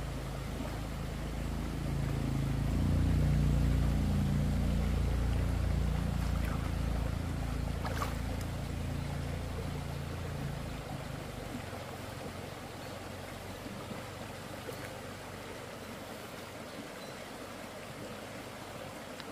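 Steady rush of flowing stream water, with a low rumble that swells over the first few seconds and dies away about eleven seconds in.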